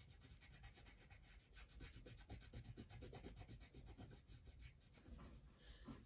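Faint, rapid scratching of a coloured pencil on paper, stroked quickly back and forth to colour in a drawing.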